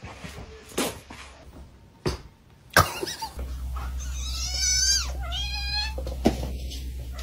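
A kitten mewing twice, two high, wavering calls each lasting under a second, after a few sharp knocks in the first three seconds.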